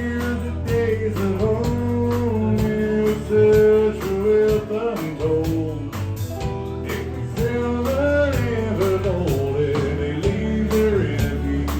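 Country song played by a band, with guitar, bass and drums and a melodic lead line.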